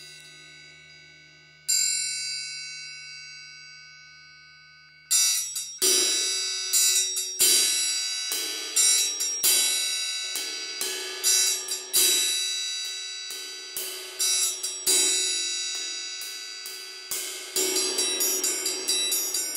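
Triangles of different sizes struck with beaters, their bright metallic rings overlapping. A fading ring gives way to a single strike about two seconds in, then from about five seconds in a steady pattern of strikes about every two-thirds of a second, quickening near the end into rapid repeated strikes.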